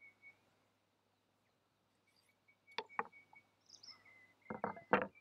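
A few dull knocks of a wooden rolling pin, cutting board and dough being handled on a wooden table, a pair about three seconds in and a louder cluster near the end. Behind them, a faint, thin, high chirp comes and goes.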